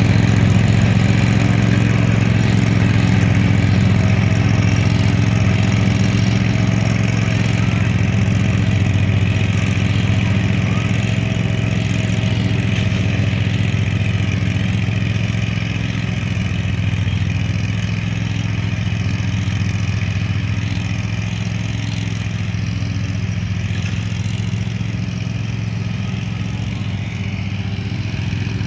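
Cub Cadet Pro Z 154S zero-turn mower's engine running steadily, a low hum that slowly grows fainter as the mower drives away across the grass.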